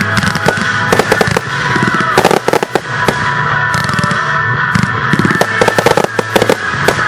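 Aerial fireworks bursting in quick succession, a dense run of sharp bangs and crackles, with a show soundtrack of music playing under them.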